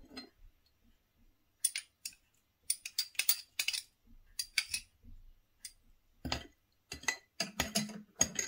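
A metal spoon clinking irregularly against glass bowls as minced garlic is spooned from a small glass dish into a bowl of liquid sauce and stirred in.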